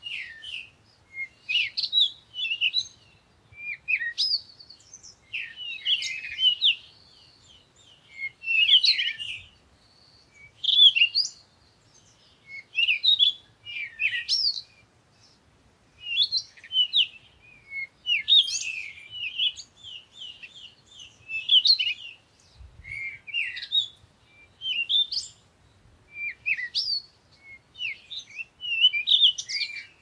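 Songbirds singing: quick, varied chirps and trills in short phrases every second or two.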